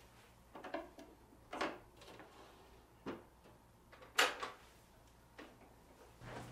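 Knocks and scrapes of a vinyl record being handled and set on a turntable, about five short handling sounds, the loudest a little past four seconds in. A low steady hum comes in just before the end.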